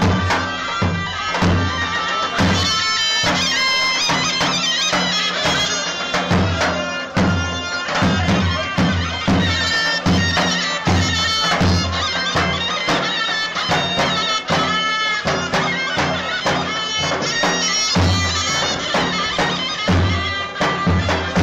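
Folk dance music played live: a loud reed wind instrument carries a sustained, ornamented melody over a large double-headed bass drum beating a steady dance rhythm.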